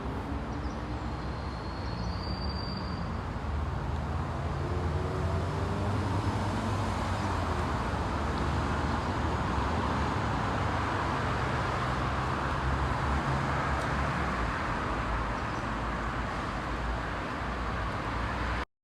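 Steady road-traffic noise: a continuous rumble and hiss that cuts off suddenly near the end.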